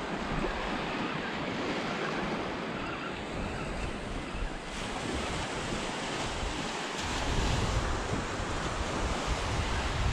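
Small waves breaking and washing up a sandy beach, with wind buffeting the microphone as a low rumble that grows stronger about two thirds of the way through.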